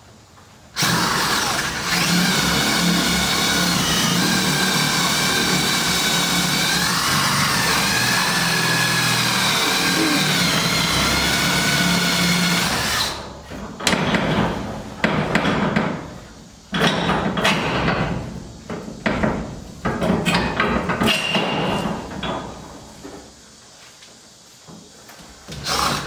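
Cordless drill with a paddle bit boring up into a wooden overhead beam: the motor runs steadily for about twelve seconds, its pitch sagging for a while midway as the bit bites. Then it stops, and several short, uneven bursts and knocks follow.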